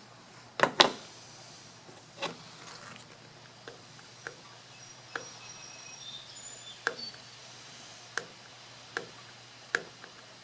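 Release liner being picked and peeled off VHB tape on a truck bed: scattered sharp clicks and taps, the two loudest under a second in. Faint bird chirps are heard in the middle.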